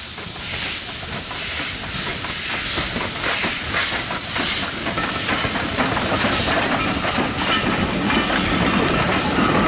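LB&SCR A1X Terrier 0-6-0 tank locomotive working a train past at close range, hissing steam over its exhaust beats and growing louder over the first two seconds. Near the end the vintage coaches' wheels clatter over the rail joints.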